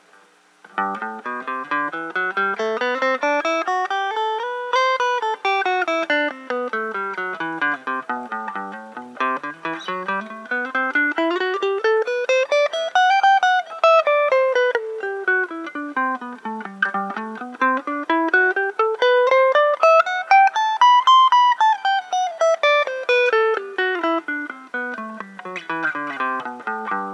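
Stratocaster-style electric guitar playing a fast single-note scale exercise up and down the neck. It runs up and back down three times, about eight seconds to each rise and fall, beginning about a second in. This is the finger-stretching fingering patterns played end to end.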